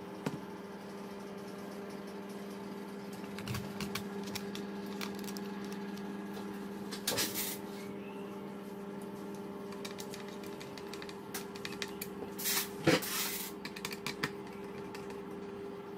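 Small clicks, taps and rustles of a screwdriver turning terminal screws and wires being handled at an irrigation timer's screw terminal block, coming in scattered bunches, the loudest toward the end. A steady low hum runs underneath.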